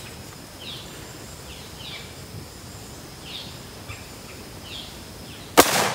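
Small birds chirping in short calls, then about 5.6 seconds in a single loud shot from a .458 SOCOM AR-15 rifle, followed by a trailing echo.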